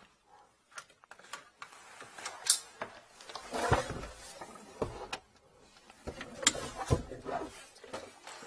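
Handling noise from a red hose and white plastic tubing being pulled and moved by hand: irregular clicks, knocks and rustling, a few louder knocks among them.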